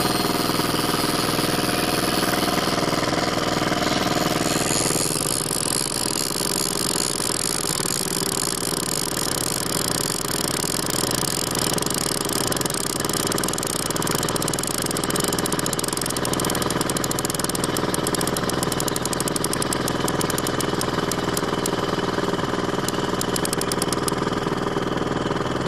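Small boat outboard motor running steadily at low trolling speed, its pitch shifting slightly about five seconds in. A fast light ticking joins in over the second half.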